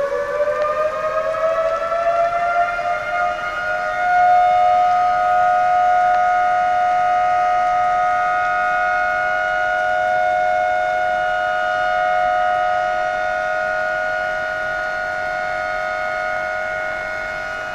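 Power house warning siren sounding a high alert. Its wail rises in pitch over the first few seconds, then holds a steady, loud tone, easing slightly near the end.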